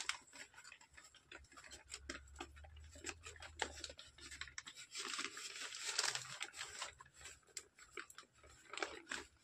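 Thin plastic sheeting crinkling and rustling under hands pressing a wrapped lump of damp firework star composition down over a wire mesh, with many small irregular ticks and crackles.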